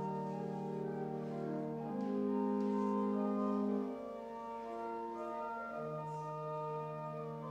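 Organ playing slow, sustained chords that change every couple of seconds, a little softer in the second half.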